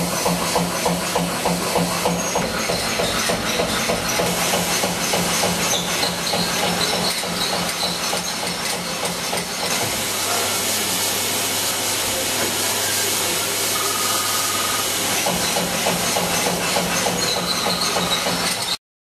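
TPM 18K high-speed pad printer for tin wine capsules running: a fast, continuous clatter of its mechanism over a steady hum and hiss. The sound drops out briefly near the end.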